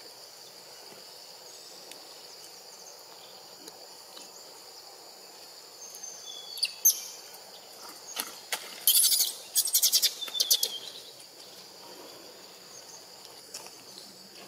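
Steady high-pitched drone of forest insects, with a run of loud, sharp, high-pitched chirps and squeaks from about six to eleven seconds in.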